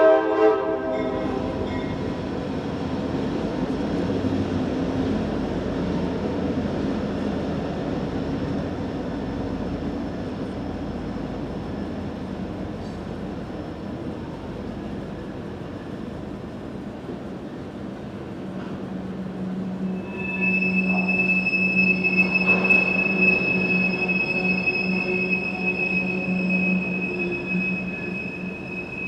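Two CSX EMD SD40-2 diesel locomotives running with a freight train: a horn blast cuts off just after the start, then a steady rumble of locomotives and rolling cars. About twenty seconds in, a high steady squeal, typical of wheel squeal, joins and holds.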